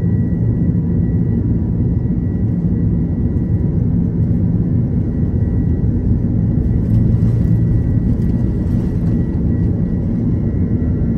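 Inside a jet airliner's cabin during the takeoff roll: a steady, loud rumble from the engines at takeoff thrust, with a thin steady high whine above it.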